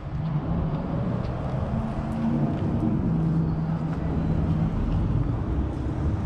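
Road traffic: a vehicle engine's low hum, shifting slowly in pitch, over steady traffic noise.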